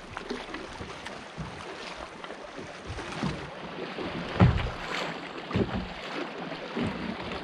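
Water lapping and slapping against the hull of a fishing kayak, with a few irregular thumps. The loudest thump comes about four and a half seconds in, and another about a second later.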